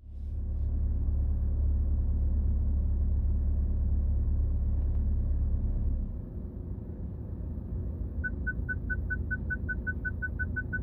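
A steady low rumble for the first six seconds, then, from about eight seconds in, the BMW F30's Park Distance Control beeping: short single-pitch tones at about five to seven a second, closing up as they go. The front PDC sensors are detecting an obstacle ahead of the car.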